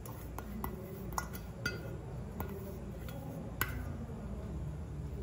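Light clinks and taps as a small metal bowl knocks against the rim of a plastic food processor bowl while orange zest is scraped out of it. About half a dozen sharp ticks, the clearest about three and a half seconds in.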